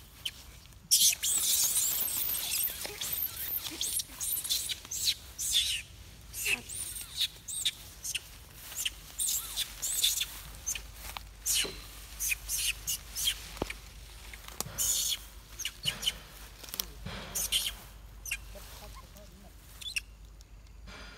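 A baby macaque crying in short, high-pitched squeals, again and again, loudest in the first few seconds and thinning out towards the end.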